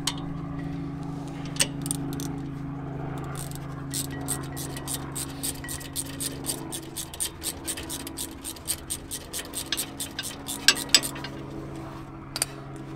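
Ratchet wrench clicking in a quick, even run of about four clicks a second as a rear brake caliper guide bolt is backed out, starting a few seconds in, with two sharper metal clicks near the end. A steady low hum runs underneath.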